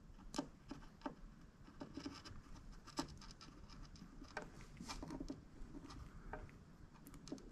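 Faint, scattered small clicks and rustles of gloved hands handling a thermal paste syringe and a circuit board.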